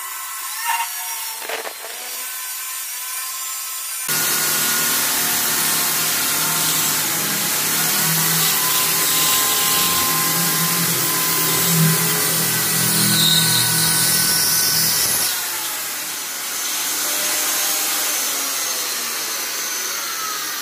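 Corded electric drill running in rotary mode with the hammer action off, its bit grinding a hole through a ceramic wall tile. It runs quieter for the first four seconds, gets much louder from about four seconds in as the bit bites, and drops back a little at about fifteen seconds.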